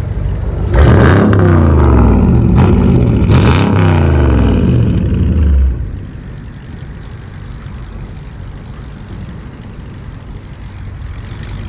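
Dodge Charger accelerating hard away, its engine revving up in three rising sweeps with two quick upshifts between them. It cuts off sharply about six seconds in, leaving a steady hum of road traffic.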